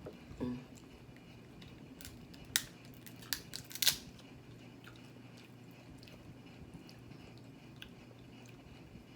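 Crab shell being cracked and crunched while eating: a few sharp cracks about two and a half to four seconds in, the last the loudest, with quiet eating sounds otherwise.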